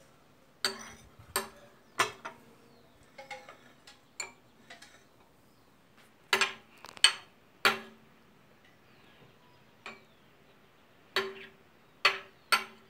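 Metal spoons clinking against porcelain bowls and a cup as ceviche is spooned out: about fifteen sharp clinks, each ringing briefly, at irregular intervals and some in quick pairs or threes.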